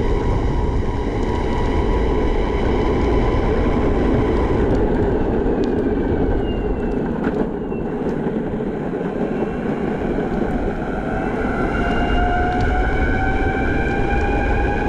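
Backfire Zealot electric skateboard riding along with a steady rolling rumble from its wheels and a thin whine from its motors. The whine sinks slightly at first, dips with the board's speed midway, then rises in pitch over the last few seconds as it speeds up.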